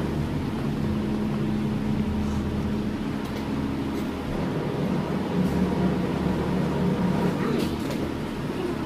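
Steady mechanical hum of room machinery, with a few faint clicks.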